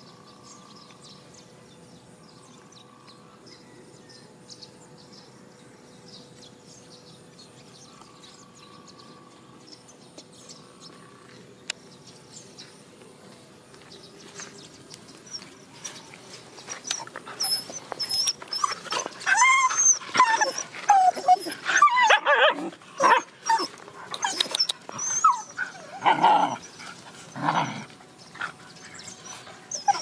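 Dogs whining and yelping at close range, starting a little past halfway and repeating over and over. Before that there is only a quiet stretch with a few faint chirps.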